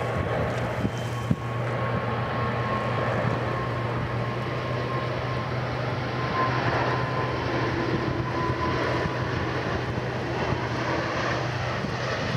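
Emirates Airbus A340-500's four Rolls-Royce Trent 500 turbofans on landing approach with gear down, heard from about a kilometre away: a steady, distant jet roar with a thin high whine that fades out past the middle.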